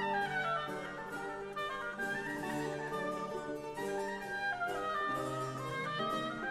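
Orchestral classical music with strings and winds, moving from note to note.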